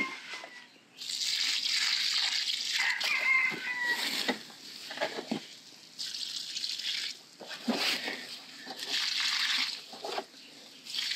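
Liquid biogas effluent pouring from a plastic jug and splashing onto soil and leaves at the base of plants, in three or four bouts with short pauses between them. A short bird call sounds in the background about three seconds in.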